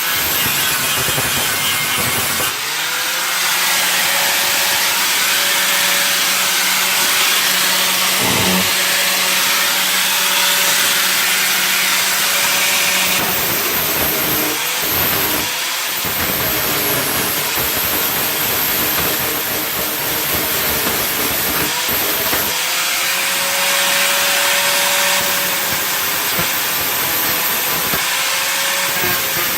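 Handheld electric grinder working on sheet metal in long runs. Its motor hum drops away in short breaks and spins back up in pitch as it starts again.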